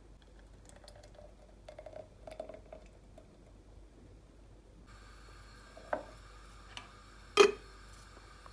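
Light clinks and taps of kitchenware against a glass jar while caramel is poured into it, then a sharp knock near the end as the screw lid is put on the jar.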